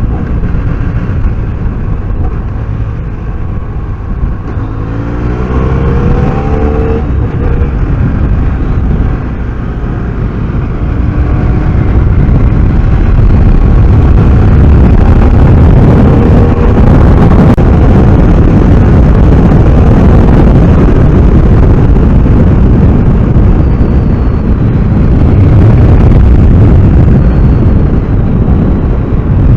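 BMW F800R's 800 cc parallel-twin engine heard from on the motorcycle, revving up through the gears about five seconds in. From about twelve seconds in it gets louder, with a heavy rush of wind noise as the bike picks up speed.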